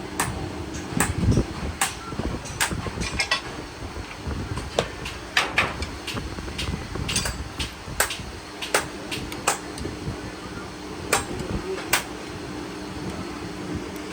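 Irregular sharp metal taps and knocks from hand tool work on bus shock absorber parts, roughly one or two a second, over a steady low hum.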